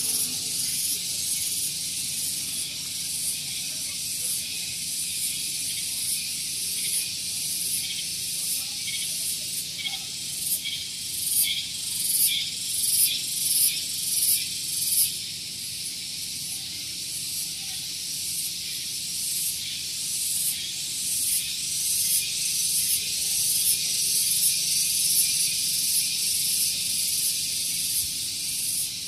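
Cicadas buzzing in the tree canopy, a dense high-pitched drone. Around the middle it swells in loud rhythmic surges, about three every two seconds, then settles back to an even buzz.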